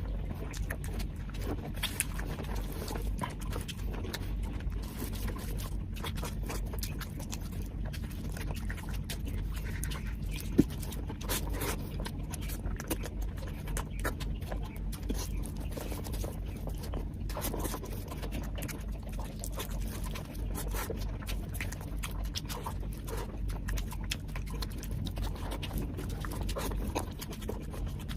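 Close-miked, wet chewing and lip-smacking of a person eating biryani, with a dense run of small mouth clicks and one sharper click about ten seconds in.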